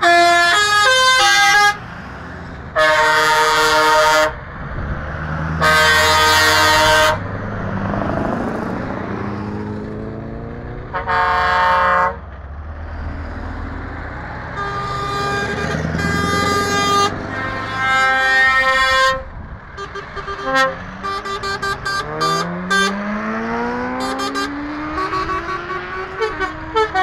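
Lorry air horns sounding one after another: a stepped horn tune right at the start, then several long blasts of about a second each, and many quick short toots in the second half. Between them, truck diesel engines rise in pitch as they accelerate through the gears.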